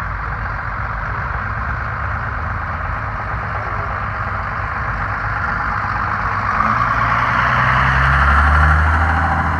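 Old Dodge pickup truck's engine running as the truck pulls slowly past. It grows louder as it comes close and is loudest about eight to nine seconds in.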